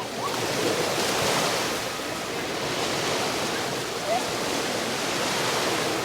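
Ocean surf breaking and washing up a beach, a steady rush of water that swells about a second in, with faint distant voices and a brief call about four seconds in.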